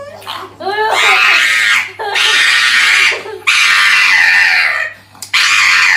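Small dog howling and screaming in a string of four loud, harsh cries, each about a second long, after a few shorter wavering howls at the start.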